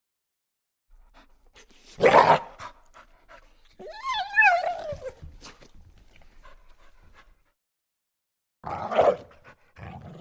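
A dog whimpering: a short breathy huff, then one high whine that rises and falls. Near the end, two short rough growls from another dog.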